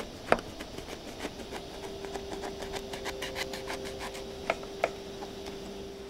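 Knife cutting through a crusty loaf of bread on a wooden board, the crust crackling in a quick run of small crunches, with one sharp knock about a third of a second in and two more clicks near the end. A faint steady tone sits underneath from about two seconds in.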